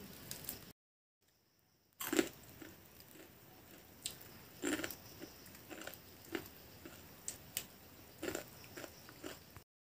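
A person chewing crisp fried masala-coated peanuts. A loud crunch comes about two seconds in, then irregular crunches roughly every half second until near the end. The crunching is the sign that the peanuts are fried fully crisp.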